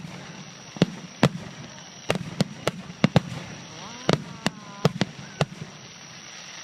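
Fireworks bursting overhead: a quick, irregular run of about a dozen sharp bangs and cracks, several coming close together.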